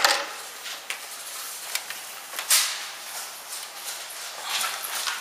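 Rustling, footsteps and scattered clicks and knocks from a player moving around, with a louder brief burst about two and a half seconds in.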